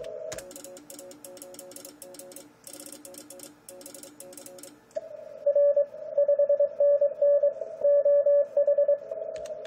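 Morse code (CW) on a ham transceiver: in the first half, weaker stations keying at a couple of pitches with computer keyboard clicks over them. From about five seconds in, a loud on-off Morse tone at one steady pitch takes over: the transmitter's sidetone as the operator sends a contest exchange.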